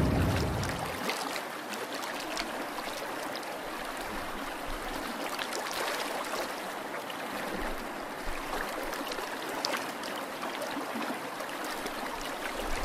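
Steady trickling and bubbling water with small scattered pops and clicks as a cardboard model ship takes on water and settles lower.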